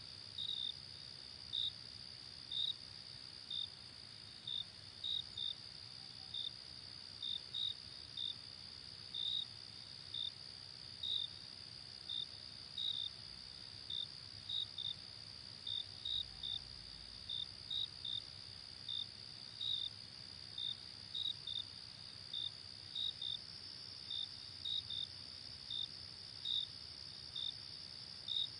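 Crickets: a steady high-pitched trill underneath, with a louder single cricket chirping about once or twice a second, often in pairs.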